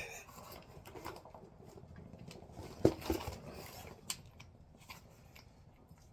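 Hand tools and sockets being handled: scattered light clicks and clinks, with a sharper metallic knock about three seconds in and another about four seconds in.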